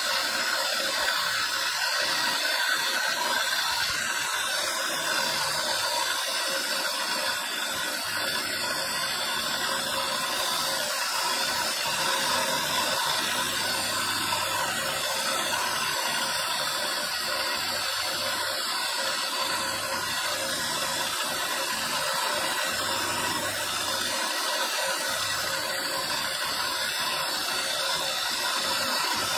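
Bench-mounted electric motor spinning a long spindle with a small carving bit, grinding onyx marble as the sculpture is pressed against it: a steady whirring and grinding hiss that runs without a break.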